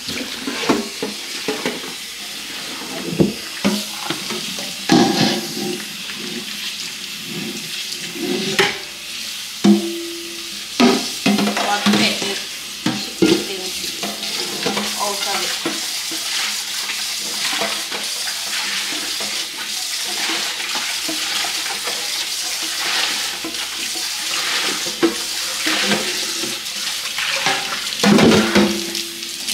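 A pot being washed with a cloth at the sink: scrubbing and the pot knocking and clanking in the first half and again near the end, over a steady hiss.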